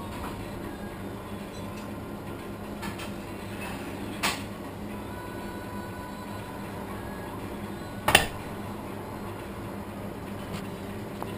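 Steady low hum of a shop interior, with a short knock about four seconds in and a louder, sharper knock about eight seconds in.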